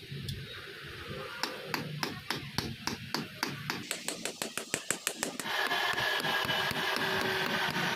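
Small hammer tapping the pins of a knife's riveted wooden handle, peening them over washers on an anvil: light sharp taps that speed up to several a second. About five and a half seconds in, a louder, steadier sound with a quick low rhythm takes over.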